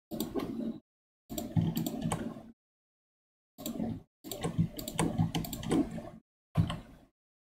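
Computer keyboard and mouse clicks in several short bursts, with dead silence between them.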